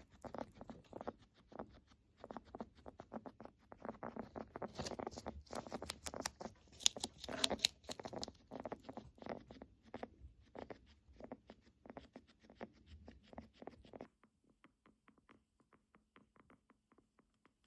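A guinea pig's crackling, rattling breathing: a quick, dense run of fine crackles. About 14 seconds in it drops suddenly to a fainter, thinner crackle. Such crackling breath is a sign of respiratory illness, most commonly an upper respiratory infection or pneumonia.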